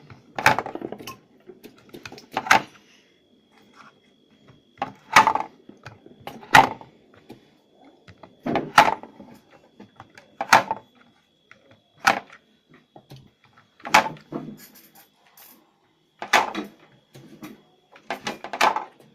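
Olives being run through a homemade olive-slitting tool, a sharp clatter with a short rattle every one and a half to two seconds.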